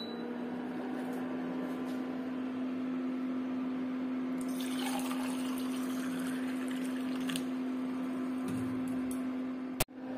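Liquid is poured into a steel tumbler, splashing for about three seconds in the middle, over a steady hum. A click near the end.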